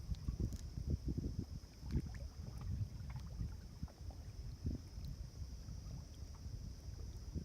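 Water lapping and sloshing in low, irregular surges, over a steady faint high-pitched hiss.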